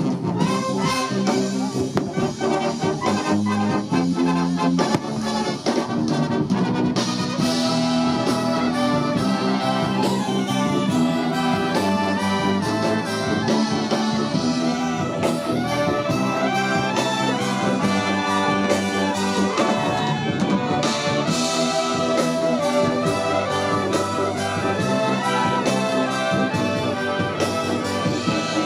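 Military brass band playing, trumpets and trombones carrying the tune.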